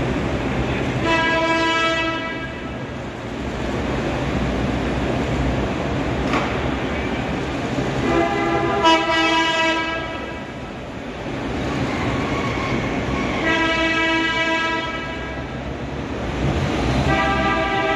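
Car horns honking in four long blasts, each about a second or more, over a steady low rumble of traffic.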